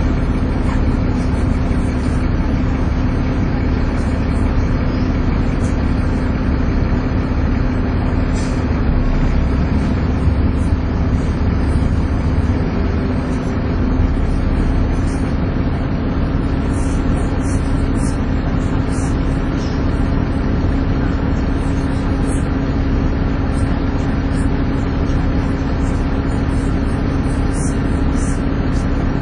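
Volvo B7TL double-decker bus's six-cylinder diesel running under load, a low rumble with a steady 'hoover' whine held throughout and rising slightly near the end, with light rattles and ticks from the bus body.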